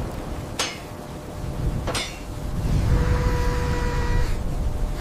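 Cartoon sound effects of hail striking metal shields: two sharp metallic clanks in the first two seconds, then a low rumble with a steady ringing tone for about a second and a half.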